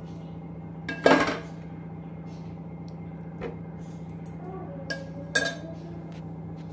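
Steel slotted serving spoon clinking and scraping against a stainless steel plate as chicken curry is ladled out: one sharp clank about a second in, then a few lighter clinks. A steady low hum runs underneath.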